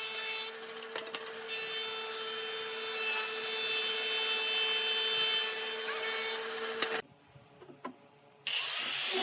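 An electric power tool's motor runs with a steady whine as it works pallet wood, then cuts off suddenly about seven seconds in. Music starts shortly before the end.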